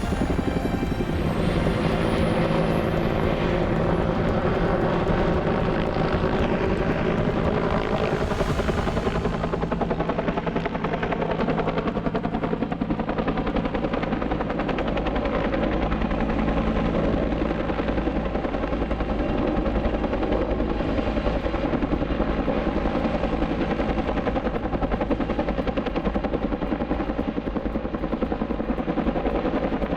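Helicopter running steadily, its rotor beating continuously under the turbine engine; a faint high whine falls slightly in pitch over the first few seconds.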